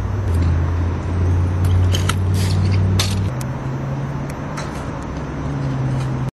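A steady low engine-like hum that shifts pitch twice, with scattered clicks and knocks from scooter wheels rolling on concrete. The sound cuts off suddenly near the end.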